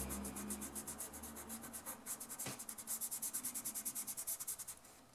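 A fingertip rubbing dry soft pastel into paper with quick back-and-forth strokes, about nine or ten a second, blending the colour. The rubbing pauses briefly around two seconds in, and there is one light tap about half a second later.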